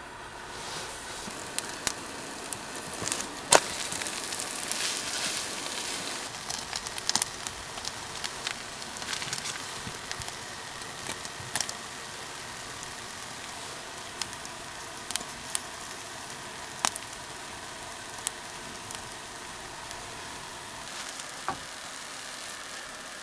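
Food frying in a pan: a steady sizzle that starts about a second in, with scattered sharp pops and crackles, busiest in the first half.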